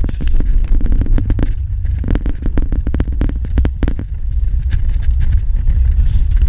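Vehicle driving over a rough, muddy dirt track: a steady low rumble from the engine and tyres, with rapid knocks and rattles from the body and suspension over the bumps, thickest in the first few seconds.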